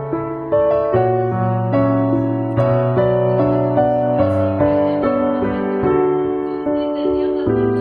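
Background piano music, a melody of separate plucked-sounding notes struck about twice a second over sustained bass notes.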